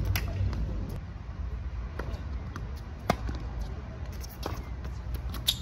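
Tennis ball struck by rackets and bouncing on a hard court during a rally: a series of sharp pops about a second or so apart, the loudest about three seconds in and near the end.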